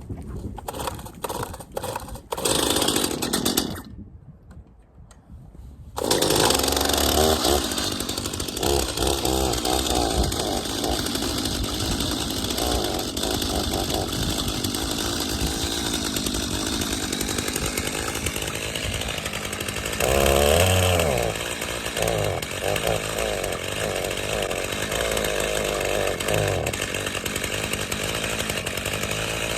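Gas chainsaw: a few clicks and a short burst of engine early on, then from about six seconds in it runs without a break, its pitch rising and falling as it is revved and bucks firewood poles into rounds.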